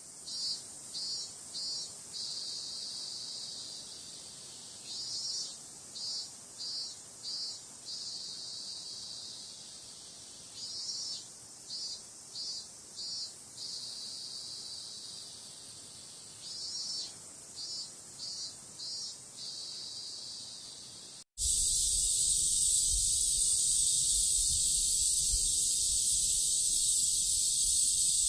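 Cicadas singing. A high call of four or five quick pulses runs into a long buzz and repeats about every six seconds. About 21 seconds in it cuts to a louder, unbroken high drone, with a low rumble underneath.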